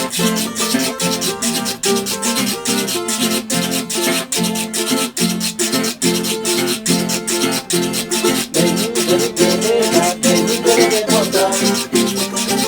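Small string band playing an instrumental passage: strummed and plucked guitars over a fast, steady shaken-rattle rhythm from maracas.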